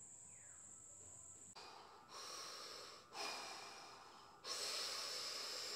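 A man taking three long, deep breaths one after another, the first starting about a second and a half in, as he gets ready to begin a set of weighted sissy squats.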